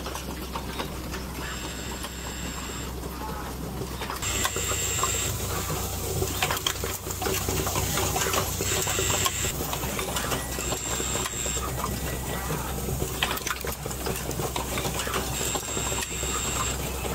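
Automated motor assembly machine running: a steady low hum under frequent clicks and knocks from its moving parts. There are five short hisses of about a second each, and it grows louder about four seconds in.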